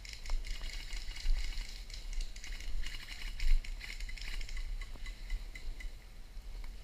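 Continuous rustling and crackling with scattered small clicks, over a low rumble on the microphone.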